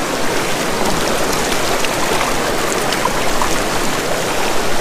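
Small, shallow mountain river flowing, a steady rush of water.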